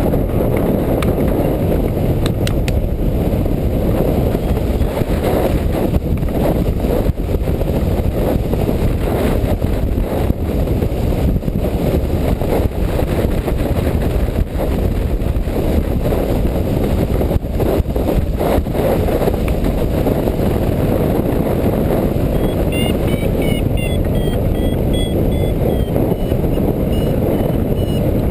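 Strong wind buffeting the microphone: a dense, steady low rumble that swells and dips with the gusts. From about 23 seconds in, a run of short electronic beeps stepping up and down in pitch sounds over it.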